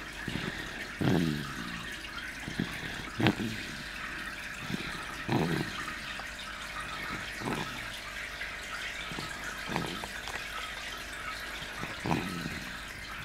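Snoring: short, low snores recurring about every two seconds, over a steady hiss.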